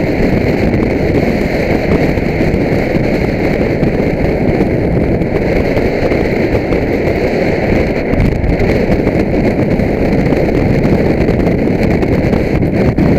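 Motorcycle riding at steady speed: a loud, continuous rush of wind buffeting the microphone, with the bike's running noise mixed in underneath.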